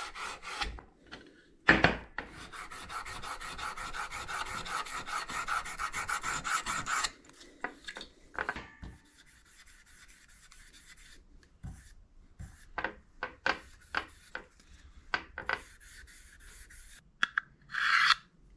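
Fast, even back-and-forth rubbing strokes on a metal plate for about five seconds, as the plate is cleaned up. These are followed by fainter, scattered short strokes as its edge is coated with blue marker.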